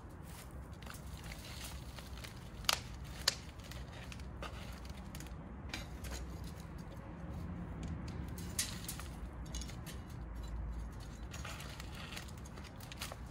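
Hands handling a soft, thin plastic nursery pot and potting soil while repotting a plant: faint rustling and crinkling with a few sharp clicks, two close together about three seconds in and another past the middle, over a steady low background hum.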